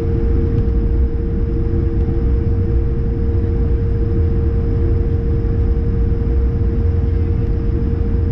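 Cabin noise inside a taxiing Airbus A220-100, with its Pratt & Whitney PW1500G geared turbofans at low taxi power: a steady hum over a constant low rumble.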